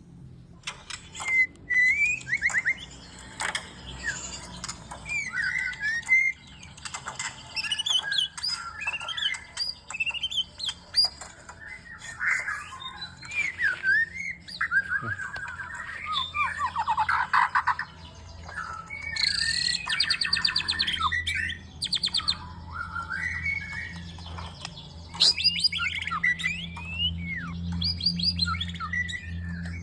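Young white-rumped shama singing a near-continuous, varied song of whistles, glides, trills and fast rattling 'mriwik' chatter, a young bird practising its song. A low steady hum runs underneath and grows stronger near the end.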